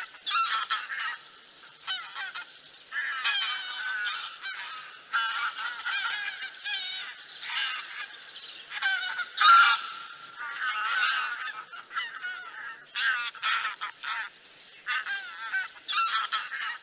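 A flock of wild geese calling: many overlapping honks in clusters with short gaps, the loudest burst about halfway through.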